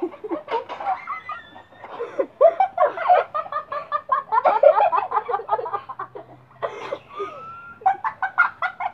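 Children laughing and giggling in short bursts.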